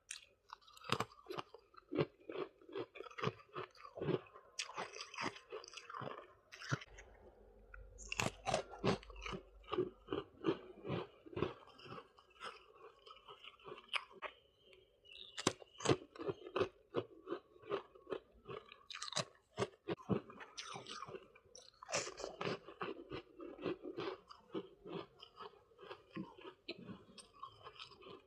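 Close-miked chewing of freezer frost ice: runs of quick, crisp crunches as the frost is bitten and ground between the teeth, with short pauses between mouthfuls.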